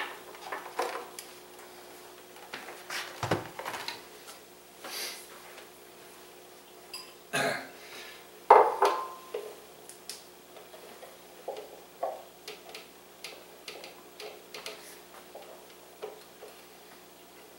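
Kitchenware being handled: knocks and clinks as a food processor's plastic lid and bowl are moved and a small bowl is set down, the loudest knock about eight and a half seconds in, then lighter taps and scrapes of a spatula working herb paste in the processor bowl.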